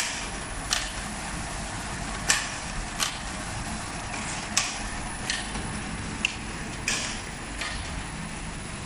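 PET/PVC cylinder tube forming and glue sealing machinery running, a steady hum with sharp mechanical clicks and clacks at uneven intervals, about one a second.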